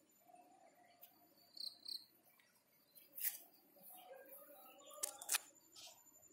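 Faint garden ambience: a thin steady high tone and two quick high chirps about one and a half seconds in, with brief knocks or rustles around three and five seconds in as the phone is moved about.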